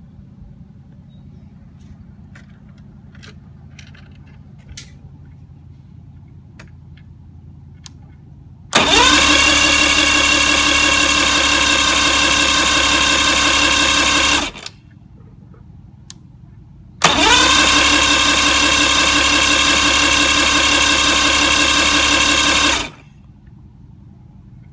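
Mercury 150 outboard being cranked by its electric starter in two long tries of about six seconds each, the pitch rising briefly as each begins, without the engine firing. The motor cranks but won't start, which the owner suspects is a faulty power pack.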